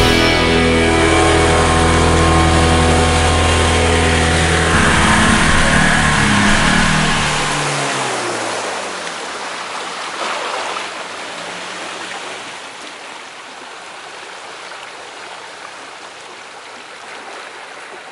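Rock background music ending on a held final chord that sinks in pitch and dies away about eight seconds in, leaving the steady rush of a running stream, which fades out near the end.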